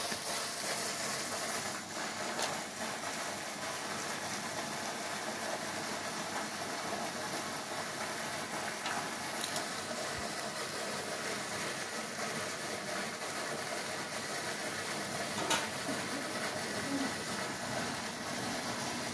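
A steady hiss, with a few short sharp clicks over it as cats chew and tear at a raw chicken in a steel bowl.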